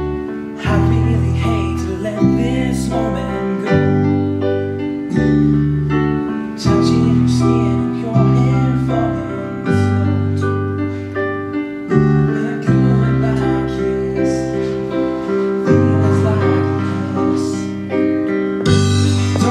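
Music from iPad instrument apps: sustained keyboard chords over a bass line, changing every second or two.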